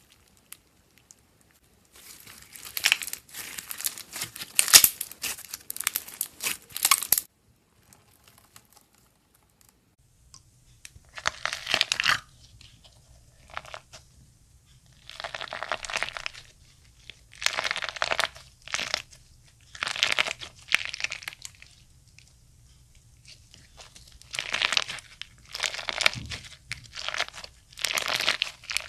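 Slime being squeezed and pressed by hand, giving bursts of crackly, crunchy popping. There is one long stretch first, then shorter bursts every two or three seconds over a faint low hum.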